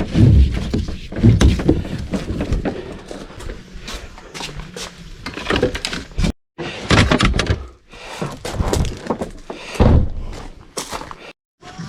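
A series of dull thunks and knocks from something being handled, with a few louder thuds.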